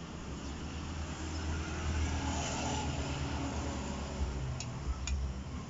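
A steady low rumble that swells and fades around the middle, with two light clicks of a metal spoon against the pot and glass bowl near the end.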